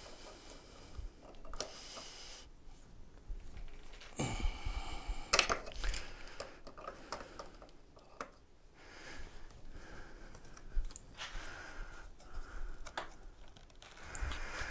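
Pliers clicking and scraping on the steel tiller clamp bolt of a Pride Go-Go folding scooter as it is worked in cross-threaded threads, with a few short metallic squeaks, the loudest cluster about four to six seconds in.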